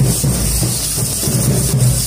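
Music with a steady, repeating drum beat.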